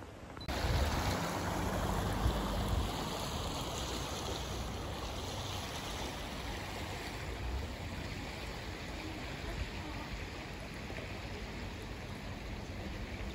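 Shallow stream water running steadily over a stony bed, a continuous rushing that comes in suddenly about half a second in.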